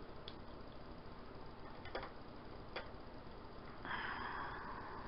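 Wooden clothespins being handled and set in place: three faint, light clicks spread over a few seconds, then a soft hiss near the end.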